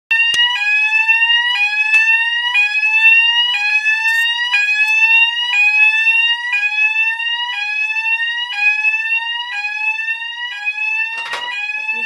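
Electronic detector alarm sounding loudly: a tone that slowly rises, then snaps back down, repeating about once a second. A brief rustle of handling near the end.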